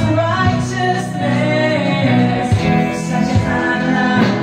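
Two women singing a worship song with live guitar accompaniment. The sung notes are held and wavering over steady low bass notes.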